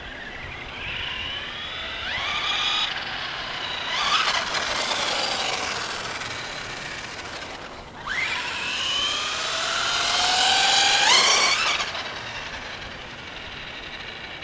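FS Racing Victory X RC truck's 3652 3000kv brushless motor whining up in pitch as the truck accelerates, with a high hiss. It comes in two runs: one from about one to seven seconds in, and a second building from about eight seconds to its loudest near eleven, then dropping away sharply.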